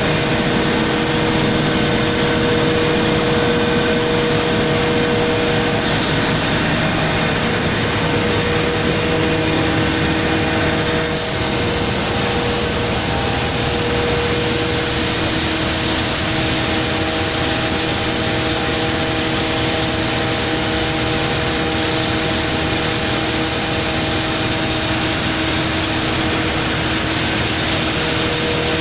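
JLSD1500 sawdust machine and its conveyors running: a loud, steady mechanical drone with a constant hum. It holds throughout apart from a brief dip about eleven seconds in.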